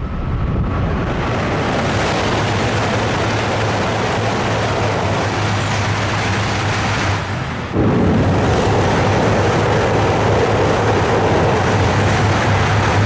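E8-series Shinkansen passing through a station at high speed: a loud, steady rushing roar that starts suddenly and jumps louder about eight seconds in.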